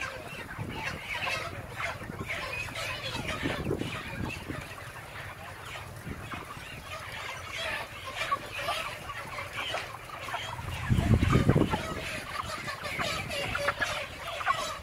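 A large flock of 35-day-old broiler chickens clucking and chattering, many birds at once in a dense, continuous clamour. About eleven seconds in, a low rumble lasting about a second is briefly the loudest sound.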